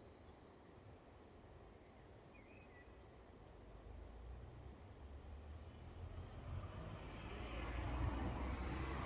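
Crickets chirping in a steady pulsed trill. About halfway through, a low rumble comes in and grows steadily louder toward the end.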